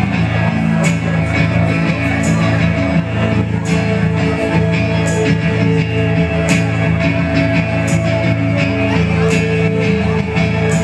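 Live rock band playing loud, with guitar over a steady low end, heard from within the audience. A bright percussive hit recurs about every second and a half.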